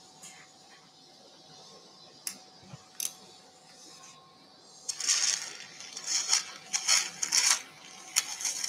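Steel surgical instruments being handled: a few sharp clicks, then a busy run of clinking, scraping and rustling handling noises in the second half. A faint steady tone sounds underneath.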